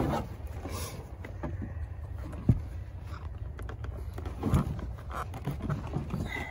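Leather stirrup leathers being worked and pushed through a western saddle: scattered soft knocks, taps and rubs of handling, the sharpest about two and a half seconds in, over a low steady rumble.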